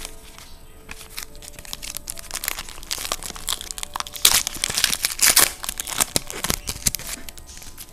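Plastic wrapper of a trading-card pack being torn open and crinkled in the hands, an irregular crackle that is loudest about halfway through.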